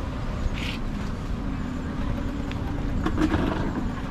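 A motor vehicle's engine running with a steady low rumble, a short hiss about half a second in and a brief clatter around three seconds.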